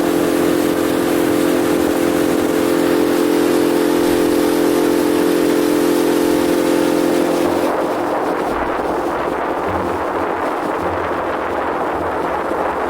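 Motorboat engine running steadily under way. About eight seconds in its steady hum drops away, leaving a rushing noise.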